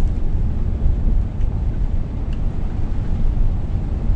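Steady low rumble of a Scania S500 truck's engine and road noise, heard inside the cab while driving.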